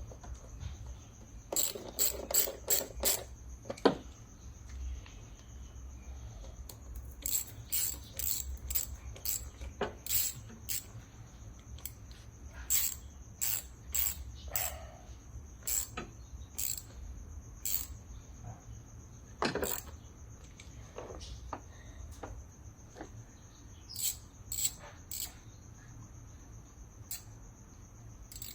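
Hand tools and metal parts clicking and clinking in a car's engine bay: irregular sharp clicks, with short runs of quick ratchet-like clicking.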